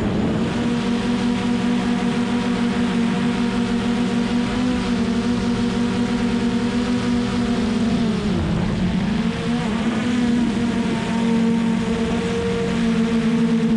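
Hubsan Zino Pro quadcopter's motors and propellers buzzing steadily in flight, heard up close from a GoPro mounted on the drone's top. The pitch sags briefly about eight seconds in and climbs back as the motors slow and speed up again.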